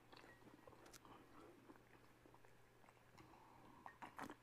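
Faint chewing of bread with small wet mouth clicks, near silence in between, and a few louder short clicks near the end as tea is sipped from a mug.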